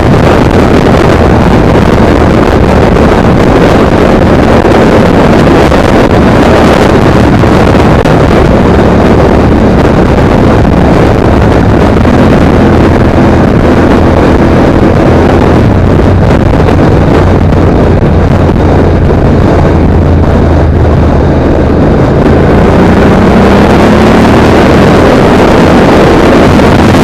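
Motorcycle engine running while riding, buried in heavy wind buffeting on a helmet-mounted microphone, loud throughout. Near the end the engine pitch climbs as it accelerates.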